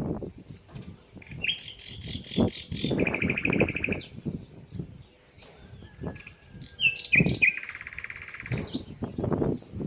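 Small songbirds chirping, with a rapid buzzy trill about three seconds in and another about three-quarters of the way through, over an irregular low rumble.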